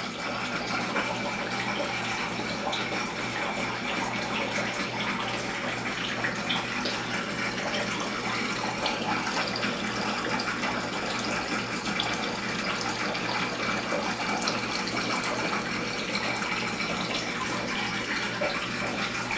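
Steady rushing noise with a faint constant hum under it, unchanging throughout.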